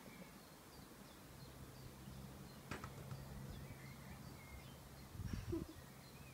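Faint garden ambience with small birds chirping on and off and a low steady hum. A single sharp click comes a little under three seconds in, and a louder, short low thump comes just after five seconds.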